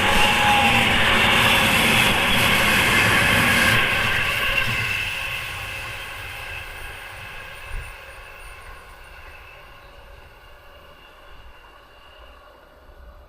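JR 209-series electric commuter train passing close by, loud for the first few seconds, then fading steadily as it runs away into the distance. There is a single short knock about eight seconds in.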